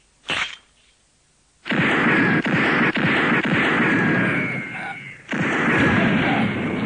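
Cartoon crash sound effect of a wall being smashed through: a short sharp snap about a third of a second in, then a near-silent pause, then loud heavy crashing and rumbling with repeated impacts from nearly two seconds in, dipping briefly around five seconds in before crashing on again.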